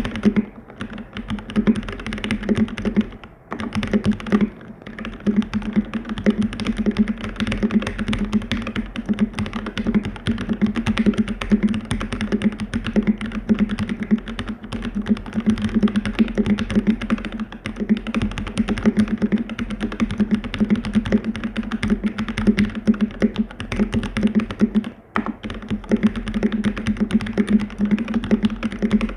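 Keychron K6 mechanical keyboard in an aluminium case, fitted with Gateron Brown tactile switches lubed with Krytox 205g0, being typed on fast and continuously. There are short pauses about three, four and a half, and twenty-five seconds in.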